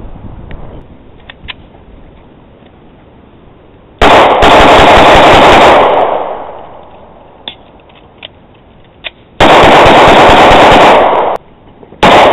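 Rapid gunfire in three strings: two of about two seconds each and a short one near the end. The shots run together and overload the recording.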